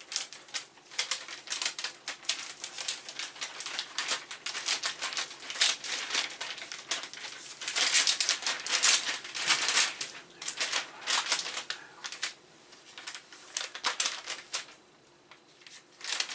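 A plastic bag crinkling and rustling in irregular bursts as a computer logic board is worked through it, easing off near the end.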